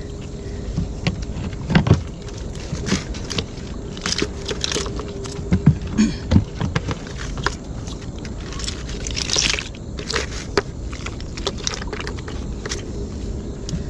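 Irregular rustling, scraping and knocking of a wire-mesh fish trap and a plastic sack being handled as snakeheads are emptied from the trap, with a few dull thumps.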